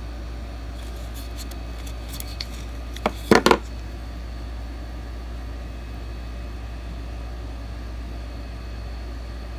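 Small plastic earbuds and their charging case being handled: a few light clicks, then a quick cluster of sharp clicks about three seconds in, over a steady low hum.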